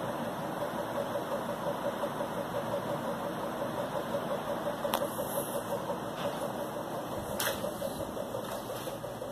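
Old Loren Sid four-blade ceiling fan running at speed: a steady motor hum with a rhythmic pulse of about four or five beats a second. One blade is bent upward, leaving the fan always unbalanced. Two sharp clicks come about halfway through and again about two and a half seconds later.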